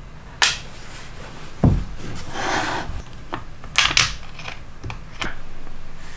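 Plywood jig parts being handled on a cutting mat: a sharp click about half a second in, a dull thump just before two seconds, a short scraping slide, then a quick run of clicks and light knocks.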